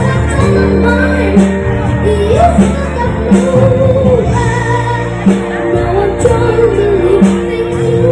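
A child singing a melody over backing music with held chords and a steady beat.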